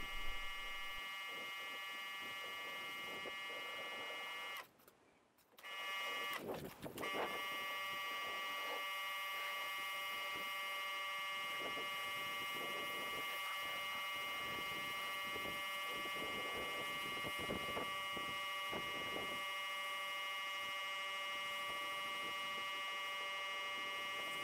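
Electric pressure washer running with a steady high whine as it sprays rinse water. It cuts out for about a second roughly five seconds in, then runs on.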